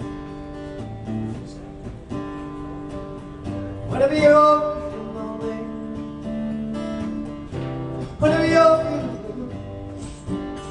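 Acoustic guitar playing the intro to a country song, with a louder melodic phrase coming in twice over the chords.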